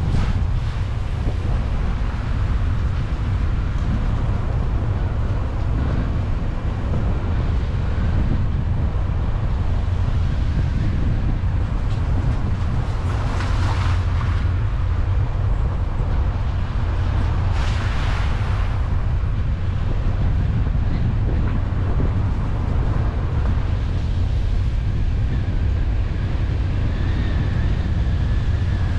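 A car driving along a road: a steady low rumble of engine and road noise with a wash of wind on the microphone. Twice near the middle, about four seconds apart, a brief rushing swell rises over it.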